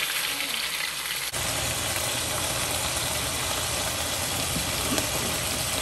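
Steady hiss with no distinct events. A little over a second in, a steady low machine rumble suddenly joins it and runs on without change.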